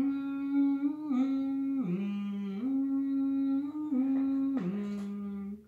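A woman humming a simple tune in long held notes that step up and down in pitch.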